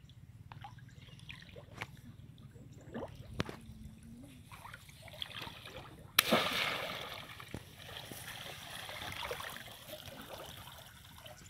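Shallow muddy water sloshing and trickling as a woven bamboo basket is worked through it, then a sudden loud splash about six seconds in as the basket is plunged and dragged, trailing off into softer sloshing over the next few seconds.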